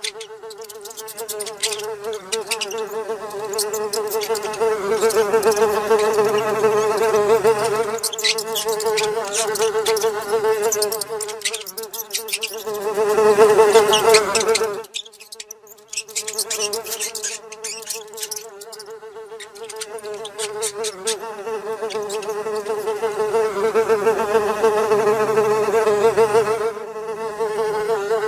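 Buzzing of a housefly: a steady hum that swells and fades, loudest about halfway through and breaking off briefly just after, with scattered sharp clicks over it.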